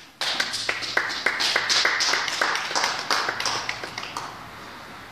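A small audience clapping, individual claps distinct. It starts abruptly and tapers off over about four seconds.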